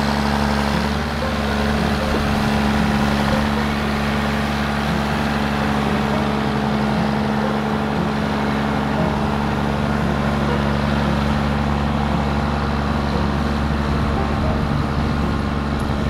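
Diesel engine of a large four-wheel-drive John Deere tractor running steadily as it pushes and packs a silage pile with its front blade.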